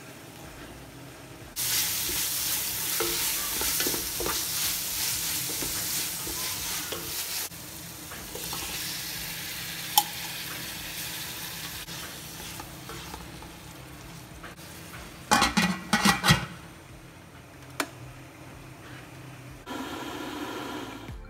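Onions and tomatoes sizzling as they fry in a large metal pot, stirred with a wooden spatula. The sizzle is loudest over the first several seconds, then settles lower. There is one sharp knock about ten seconds in and a quick run of knocks about fifteen seconds in.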